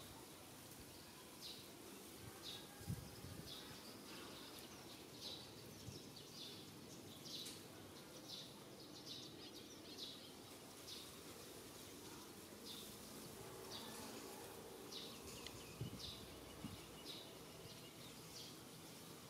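Faint short high chirps repeating roughly once a second over quiet room tone, with a few soft low thumps.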